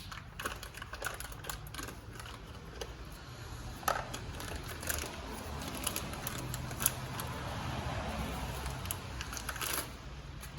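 Scattered clicks and light taps of small parts being handled (the silicone intake coupler, its clamps and a hose fitting), over a faint steady low hum.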